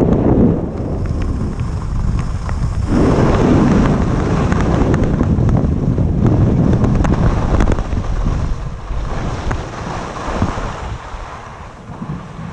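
Wind rushing over the microphone of a skier's body-worn camera, with skis hissing and scraping over groomed snow while skiing downhill. It grows quieter over the last few seconds as the skier slows.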